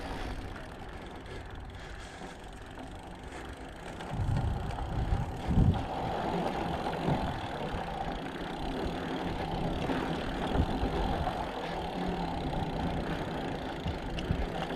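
Mountain bike being ridden, heard from a camera on the rider: wind rumbling on the microphone with tyre and bike rattle, louder from about four seconds in, with a few heavy thumps around four to six seconds in.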